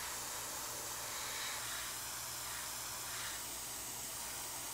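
Airbrush spraying thinned acrylic paint: a steady hiss of air and atomised paint from the nozzle.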